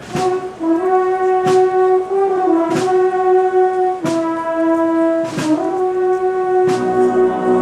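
A Spanish banda de música playing a processional march, its brass holding long, steady notes. A sharp percussion stroke falls about every second and a quarter. Lower brass come in near the end.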